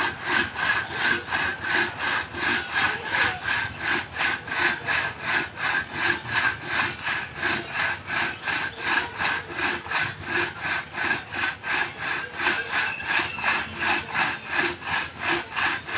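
Traditional two-man hand saw (graji esek) cutting through a wooden trunk, drawn back and forth in steady, even strokes at about three a second.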